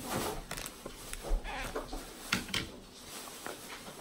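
Crinkling of a foil blind-bag wrapper and rustling of a paper insert as they are handled and unwrapped, in irregular short crackles and clicks, louder about half a second in and again around two and a half seconds in.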